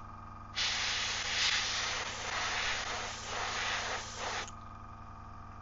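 Airbrush spraying paint: one continuous hiss of about four seconds, starting about half a second in and wavering slightly in strength before cutting off.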